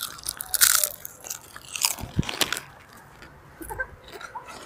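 Irregular crunching and crackling noises close to the microphone, busiest in the first half, with one sharp knock a little after two seconds.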